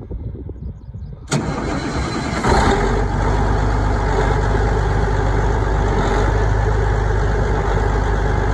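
Cold start of a Challenger tractor's diesel engine: it starts turning over about a second in, catches with a jump in level about a second later, then runs steadily.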